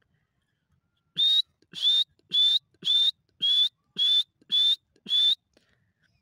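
Dakhni teetar (grey francolin) calling: a run of eight short, loud whistled notes, each with a rising upturn at its end, evenly spaced a little under two a second, starting about a second in.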